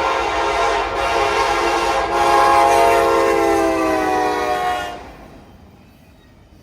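Freight locomotive's air horn blowing as the train approaches, a chord of several notes held with two brief breaks, dipping slightly in pitch before it cuts off about five seconds in.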